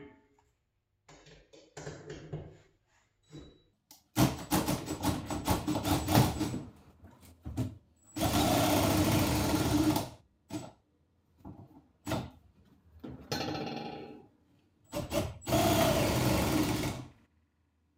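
Cordless drill turning the winch of a Racor PHL-1R ceiling cable hoist to lift a truck camper shell, run in stop-start bursts: short rapid bursts about four seconds in, then two steady runs of about two seconds each.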